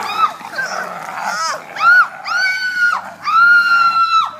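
A person screaming in a staged attack: a few short shrieks, then two long, high screams of about a second each.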